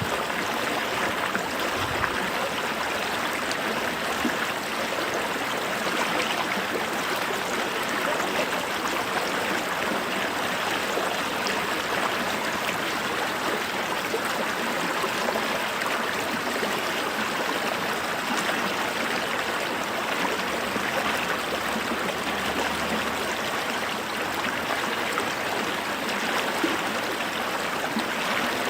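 A creek flowing steadily over rocks, an even rush of running water.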